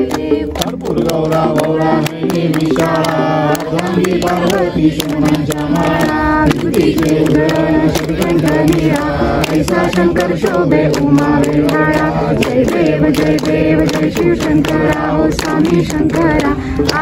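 Several people singing a devotional aarti together, with steady hand-clapping keeping the beat.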